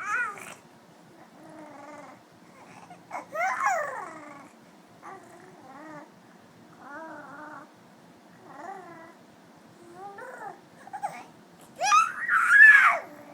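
A three-month-old baby cooing and babbling in a string of short, pitched, sing-song coos with pauses between them, ending in a louder, higher squeal near the end. These are an infant's early happy vocalisations.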